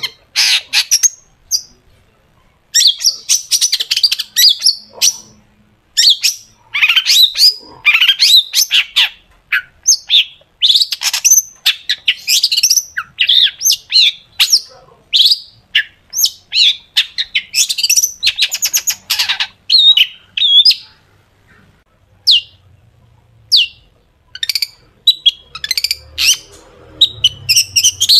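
Long-tailed shrike (cendet) singing loudly: rapid volleys of sharp, harsh chattering notes and quick rising and falling whistled phrases, in bursts broken by short pauses. Near the end of the song it thins to a few single sharp notes before the fast volleys resume.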